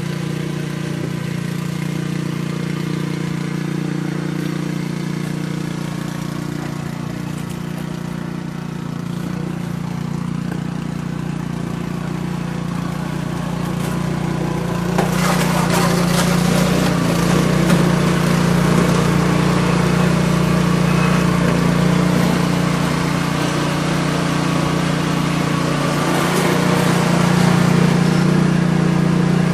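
An engine running steadily with a low hum; about halfway through it gets louder and a rougher rushing noise with scattered clicks joins it.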